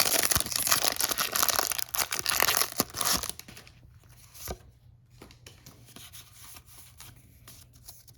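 A foil Pokémon booster pack being torn open and crinkled for about three seconds, then fainter scattered clicks and rustles of the cards being handled.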